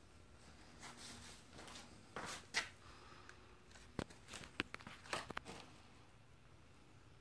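Handling noise: brief rustling and a handful of sharp clicks and taps, bunched between about two and five and a half seconds in. No machine is running.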